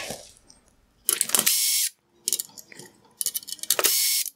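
Screwdriver backing out small T10 Torx screws from a headlight's plastic bezel, in three bursts of clicking and whirring, each about a second long or less.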